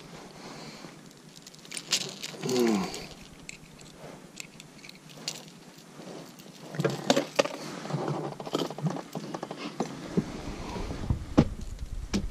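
Long-nosed metal forceps clicking and clinking against a wobbler's treble hooks while unhooking a pike held in a lip grip, with scattered handling knocks and rustles that are busiest a little past the middle. A short falling groan comes about two and a half seconds in.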